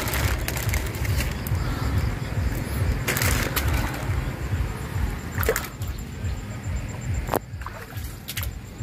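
Plastic bag rustling and a few sharp clicks as a hand handles a bagged plastic jug, over a low, unsteady rumble.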